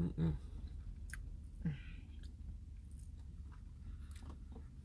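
Close-up chewing of a soft, creamy dessert (baklava cheesecake), with scattered small wet mouth clicks and a short hum of the voice about a second and a half in, over a steady low rumble.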